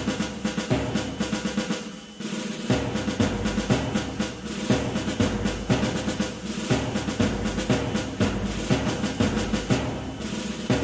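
Music driven by heavy drumming: fast, evenly repeated drum strokes in a steady rhythm, with a short break about two seconds in.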